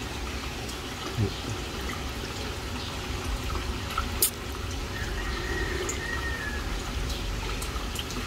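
Pool water trickling and lapping gently over a low steady hum, with one sharp click about four seconds in.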